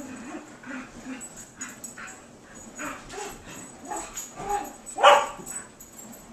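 Komondor puppies and an Australian Shepherd vocalizing as they play-fight: a run of short, repeated dog sounds a few times a second, with one much louder bark about five seconds in.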